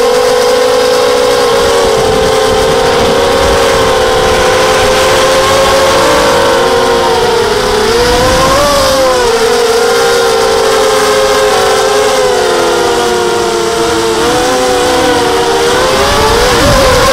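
FPV miniquad's four brushless motors and propellers whining as it flies, several close pitches that rise and dip together with the throttle, dipping and swooping twice, about halfway through and again near the end, over a low rumble.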